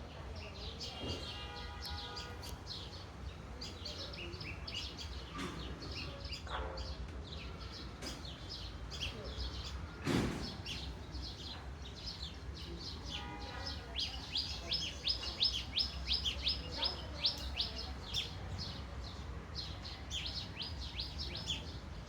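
Birds chirping: many short, high chirps, busiest in the second half, over a steady low hum. A single brief louder sound about ten seconds in.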